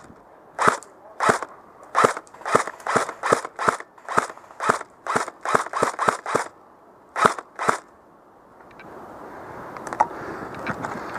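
Airsoft gun firing about eighteen single shots at an uneven pace of two to three a second, stopping just before eight seconds in. A steady noise follows.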